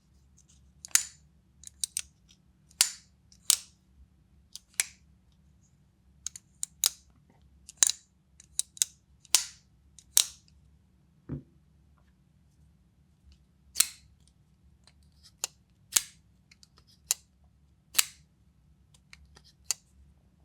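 Two QSP folding knives, one of them the Vault, being flicked open and snapped shut by hand: a string of sharp, irregularly spaced clicks and snaps as the blades deploy and lock and close, some with a brief swish. One knife gives a deeper, heavier, full-bodied sound, the other a light and airy one.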